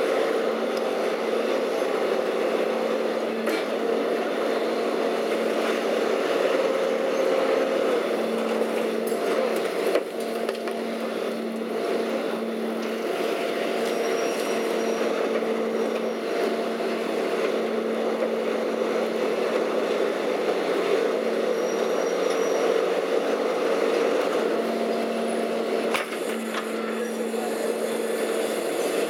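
Leach 2R-II rear-loader garbage truck running steadily, with a held hydraulic whine while a waste cart is winched up and tipped into the hopper. A sharp knock comes about ten seconds in and another near the end.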